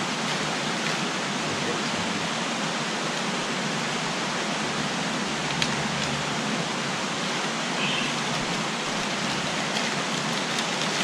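Steady rushing of a creek flowing over rocks, an even hiss that does not change.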